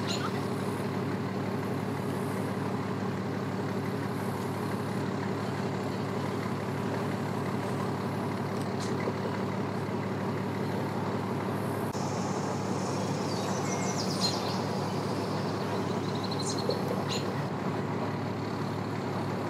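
An engine idling steadily, with a few brief high chirps over it.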